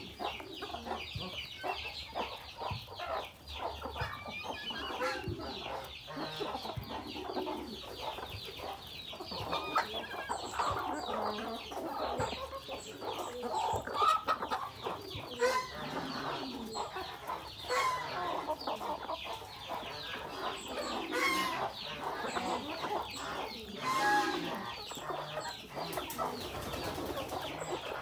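A flock of chickens clucking while feeding, with the rapid tapping of many beaks pecking at mashed greens and grain in a rubber tyre trough.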